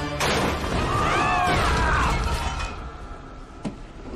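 Cartoon action sound effects: loud mechanical clanking and grinding with a screeching sweep that rises and falls in pitch, dying down after about two and a half seconds, then a single click near the end.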